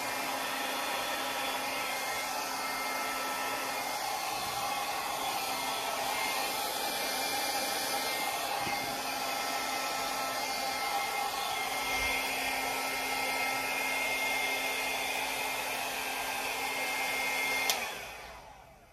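Handheld hair dryer running steadily, blowing out fluid acrylic paint in a Dutch pour. It is switched off with a click near the end and winds down.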